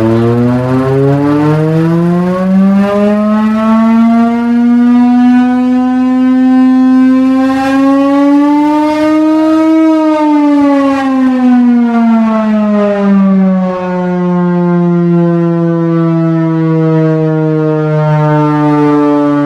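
Chrysler air raid siren, driven by a Hemi V8, sounding a deep tone rich in overtones. Its pitch climbs over the first few seconds, peaks about halfway through, then falls and settles into a lower steady tone.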